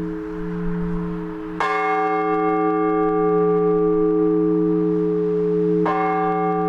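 Large Orthodox church bell struck twice, about four seconds apart, in slow single strokes. Each stroke rings on with bright overtones above the low hum left by the earlier strokes.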